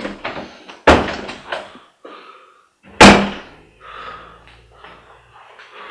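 Two loud, heavy slams about two seconds apart, each with a short ringing tail, with fainter scuffling noise between them.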